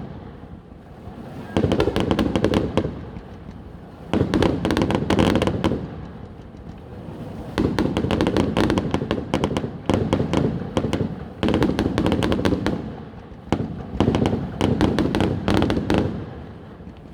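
Fireworks display: about five volleys of dense crackling bursts, each lasting one to two seconds, with quieter lulls between them.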